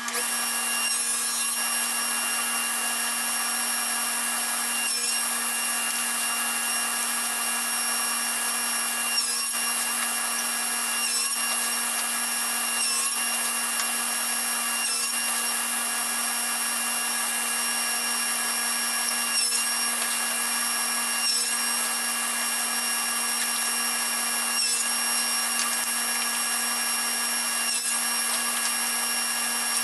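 A power tool's motor runs steadily while it cuts a series of notches into wooden boards, with a short change in the sound about every two seconds as each cut is made.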